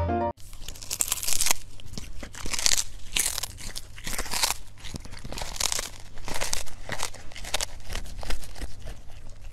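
Irregular crunching and tearing noises, a close run of sharp crackles coming every half second or so, starting just after a burst of piano music cuts off.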